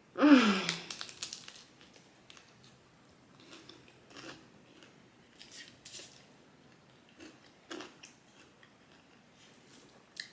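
Someone eating: a brief vocal sound that falls in pitch right at the start, then scattered soft crunching and chewing sounds with small clicks.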